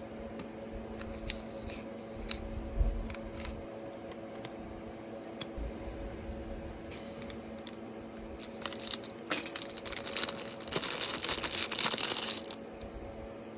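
Small clicks and taps of hand work on a phone over a steady electrical hum, with one louder knock about three seconds in and a few seconds of scratchy rustling and scraping near the end.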